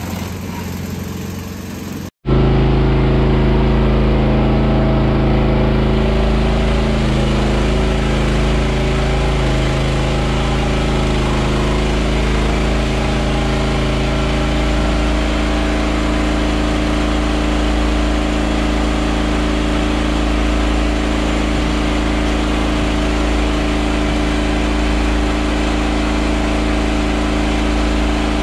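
Motor of a ride-on calf milk feeding cart running steadily, a constant low hum with several even tones, as milk is dispensed through its hose into the calf trough. A different machine noise in the first two seconds cuts off abruptly before it.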